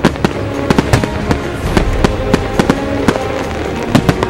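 Aerial fireworks bursting in a rapid, irregular string of sharp bangs, a dozen or more within a few seconds, with music playing underneath.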